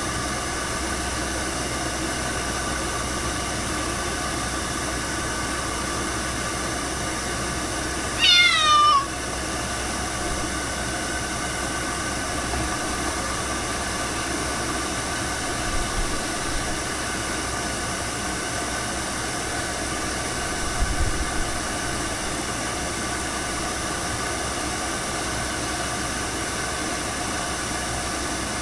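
A Ragdoll cat meows once, a single falling cry about eight seconds in, over a steady whirring noise with a hum under it.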